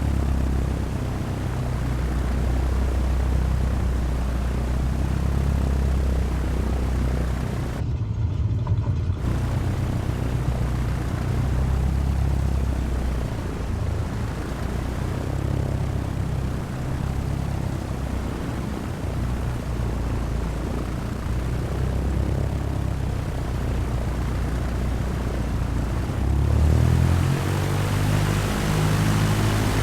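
Cessna 172's piston engine and propeller droning steadily in flight, with a constant rush of air. Near the end the pitch of the drone shifts and the hiss grows louder.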